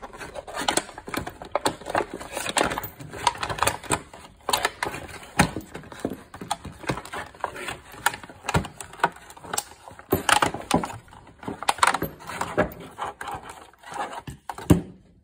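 Stiff clear plastic blister packaging of a socket set being handled and pried open: irregular crackling and sharp clicks throughout. Near the end, chrome sockets on their plastic rail knock as the rail comes out of the case.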